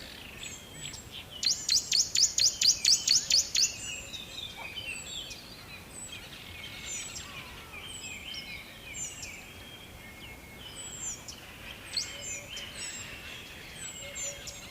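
Rainforest birds calling: a fast run of about a dozen loud, sharp, high notes in the first few seconds, then many scattered chirps and warbling calls from several birds over a faint steady hiss.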